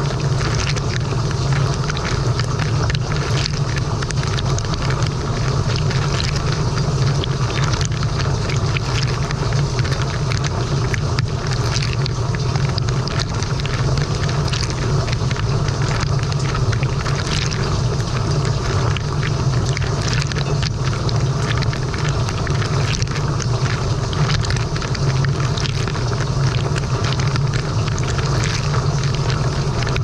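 Frigidaire Gallery dishwasher mid-wash, heard from inside the tub. Water from the spray arms is splashing and pattering hard against the dishes and racks close by, over the steady low hum of the wash pump.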